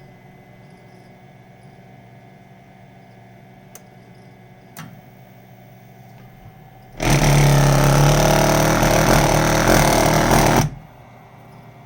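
Weil-McLain boiler giving off a loud vibrating buzz for nearly four seconds, starting and cutting off abruptly, over a low steady hum. Two faint clicks come a few seconds before it.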